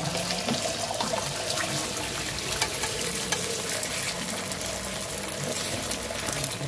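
Beaten eggs sizzling steadily on a hot flat griddle pan, with many small crackles, as more egg is poured on and spread with a knife.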